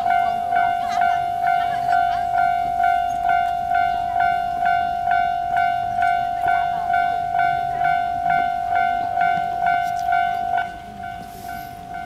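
Japanese railway level-crossing alarm ringing: an electronic bell tone struck just over twice a second in a steady, even rhythm, warning that a train is approaching. It drops sharply in volume about ten and a half seconds in and keeps ringing.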